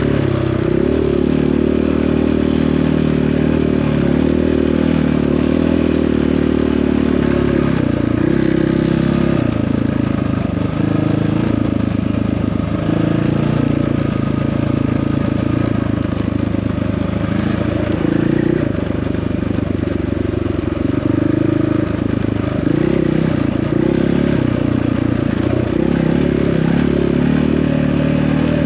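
Dirt bike engine running under a rider on a trail, its pitch rising and falling as the throttle opens and closes, and turning choppy for a few seconds now and then.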